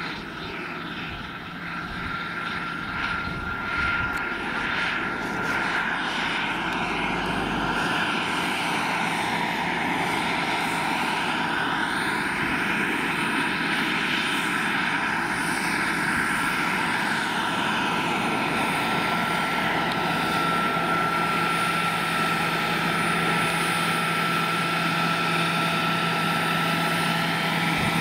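Jakadofsky Pro 6000 turbine of a large scale Aérospatiale Gazelle model helicopter running in flight, a steady high whine with rotor noise beneath it. It grows louder over the first several seconds as the helicopter comes in low and close, then holds steady.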